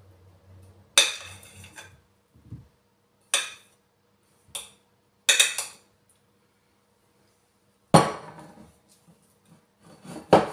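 A kitchen utensil knocking and scraping batter out of a glass mixing bowl: a string of sharp clinks, about a second in, at three and a half, and a quick double just past five seconds. About eight seconds in comes a heavier knock of glass on the wooden worktop as the bowl is put down, then a last clink near the end.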